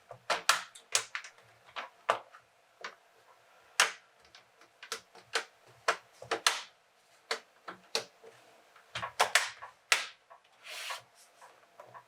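Plastic clips of a Lenovo T440p laptop's screen bezel clicking as the bezel is pressed into place around the display: a string of sharp, irregular clicks, some close together in pairs.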